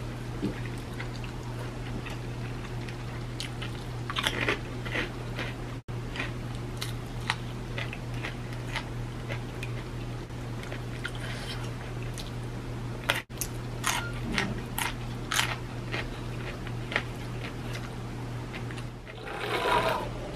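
Close eating sounds of a person eating rice and jengkol stew by hand: chewing with scattered crunches over a steady low hum. Near the end there is a short run of drinking from a bottle.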